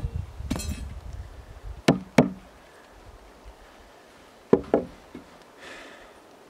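A wood chisel set in a saw kerf in a timber beam, struck four times in two quick pairs of sharp knocks about two and a half seconds apart. Near the end there is a short scrape as the chisel is laid down on the wood.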